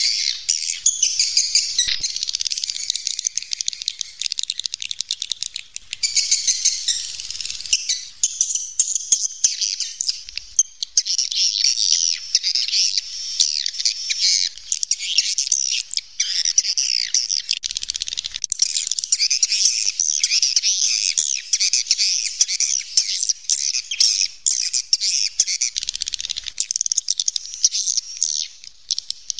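Chorus of swiftlets twittering: many high chirps overlapping without a break, with scattered sharp clicks among them.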